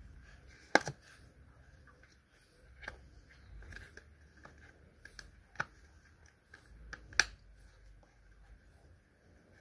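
Rustling as a leather knife sheath is handled up close, broken by several sharp clicks, the loudest about a second in and another near the end.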